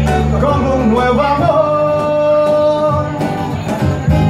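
Live unplugged band music: a singer holds a long note about halfway through, over guitar and keyboard accompaniment, with a low sustained bass that thins out about a second and a half in.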